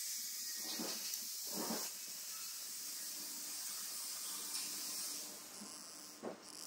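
Steady spraying hiss of compressed air from a pneumatic body-shop tool, lasting about five seconds and then tailing off. A few soft knocks sound under it.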